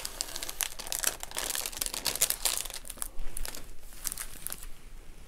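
Crinkling of the clear plastic film over a diamond painting canvas as hands press and smooth the curled canvas flat: irregular crackles, busiest in the first three seconds and sparser after.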